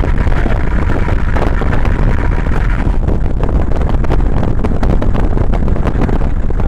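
Car driving at speed: steady road and tyre rumble with wind buffeting the microphone. The hiss in the upper part of the noise drops a little about three seconds in.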